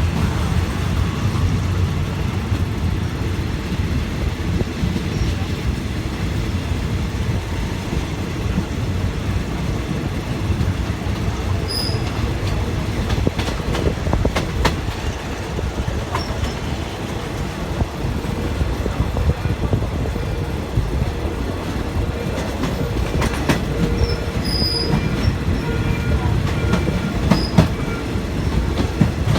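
Passenger train running on rails, heard from inside a carriage: a steady rumble of wheels on track with scattered clicks over the rail joints.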